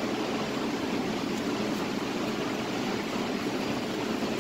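Commercial kitchen exhaust hood fan running: a steady, even rushing noise.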